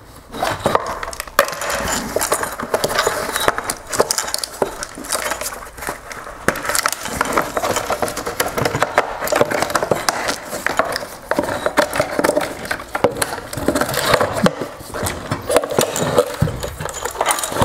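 Plastic headlight housing and its wire harness being handled: repeated clicks, knocks and rustling as the harness is worked free of the plastic tabs that hold it in.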